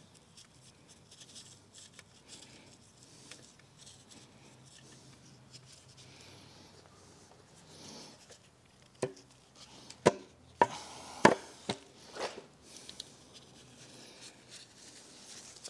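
Gloved hands threading bolts by hand into a BMW M54 double VANOS unit: faint rubbing and fiddling, then about five sharp clicks and taps of metal parts a little past halfway.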